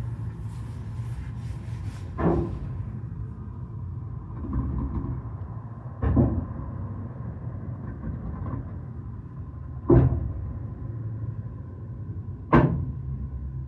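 Fireworks shells bursting: four booms a few seconds apart, each dying away, over a steady low rumble.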